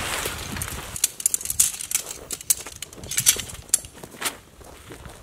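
Nylon tent fabric rustling and flapping as a tent is shaken out and spread over a groundsheet, with a quick run of sharp crinkles and light clicks in the middle that fades near the end.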